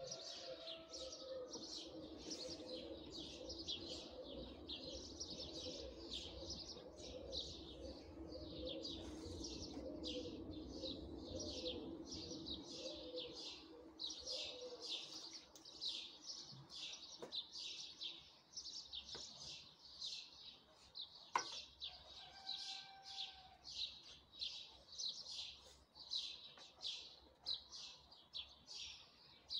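Small birds chirping rapidly and continuously, several chirps a second, with a low hum underneath that fades out about halfway through. A single sharp click about two-thirds of the way in.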